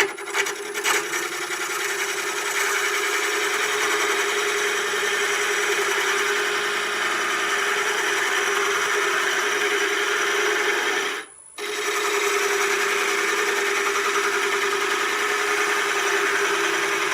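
Rounded carbide turning tool cutting a spinning wood-and-resin bottle stopper blank on a lathe: a steady scraping over an even hum, a rough shaping cut. The cut stops for a moment about eleven seconds in, then carries on.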